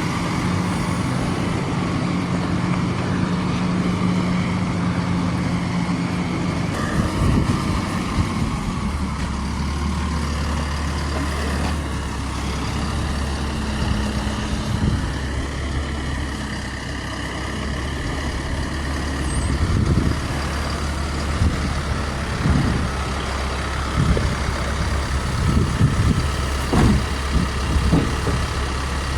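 A vehicle engine running steadily. About seven seconds in it drops to a lower, deeper drone, and scattered knocks and clunks come in over the last ten seconds.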